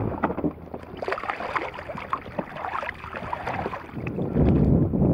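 Water splashing and lapping against a jet ski's hull as a snapper is let go over the side. About four seconds in, a low rumble of wind on the microphone comes up.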